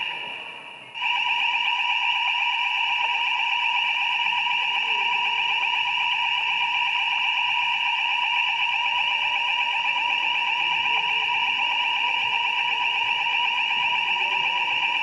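Building fire alarm sounding a steady, loud electronic tone. It fades out at the very start and comes back about a second in, then sounds without a break.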